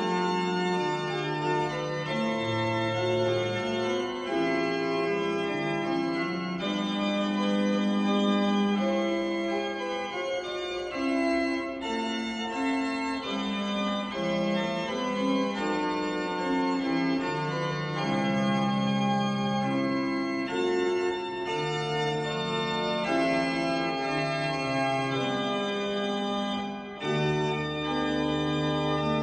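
Antegnati pipe organ playing a toccata: full held chords that change every second or so over moving inner lines. A deep bass note comes in near the end.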